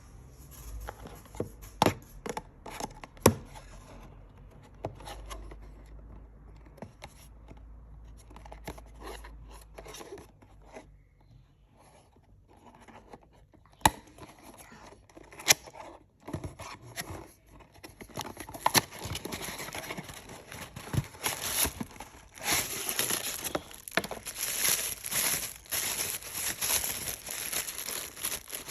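Happy Meal toy packaging being opened by hand: a few sharp snaps and light rustling, then dense tearing and crinkling from about two-thirds of the way through, louder near the end.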